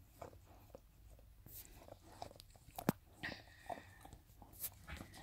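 Springer spaniel mother licking and cleaning a newborn puppy: soft, irregular wet licks and mouth smacks, the sharpest click about three seconds in, followed by a brief high squeak.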